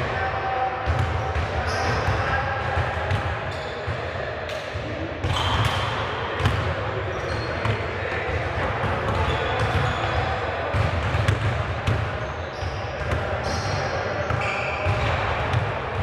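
Basketballs bouncing repeatedly on a hardwood gym floor, several at once, with short high sneaker squeaks and players' voices chattering in the background.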